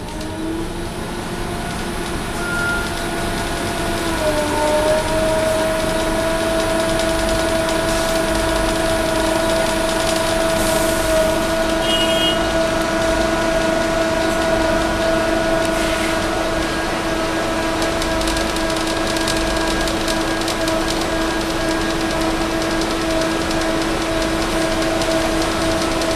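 Scania K230UB city bus with a DC9 five-cylinder diesel and ZF Ecomat automatic, heard from inside the cabin. It pulls away with its pitch climbing, dips at a gear change about four seconds in, then cruises with a steady whining tone.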